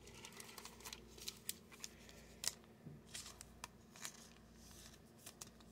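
Faint handling of trading cards: light scrapes and soft clicks at irregular moments as cards are slid and shuffled against one another in the hands.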